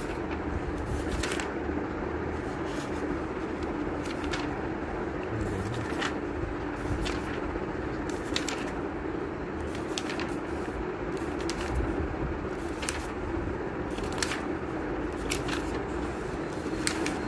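Paper pages of a book being handled and turned, with short crisp rustles and clicks at irregular moments over a steady background rumble.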